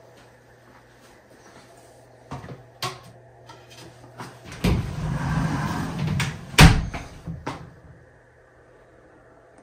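Sliding frosted-glass bathtub door rolled along its metal track for about a second and a half, ending in a sharp knock against the frame. A few light clicks come before and after.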